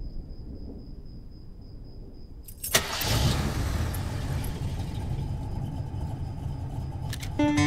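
A faint steady high tone, then about three seconds in a sharp click and an engine starting and running with a steady low rumble, as an intro sound effect to a song. Acoustic guitar comes in just before the end.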